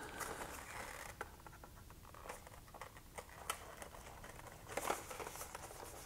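Faint handling noise of a small cardboard box turned in the hands: a few light, separate taps and rustles, with a short cluster of them about five seconds in.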